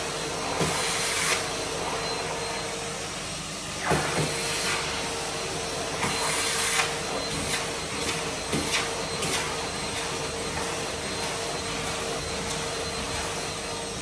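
Numatic Henry cylinder vacuum cleaner running steadily with a steady whine, its airflow hissing louder in brief surges, three times, as the nozzle is worked. A knock comes just before four seconds in, and a few light taps come around eight to nine seconds.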